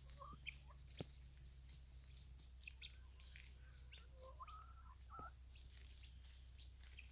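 Near silence with a few faint, short chicken calls, the longest a soft bending call about four seconds in, and a couple of faint clicks.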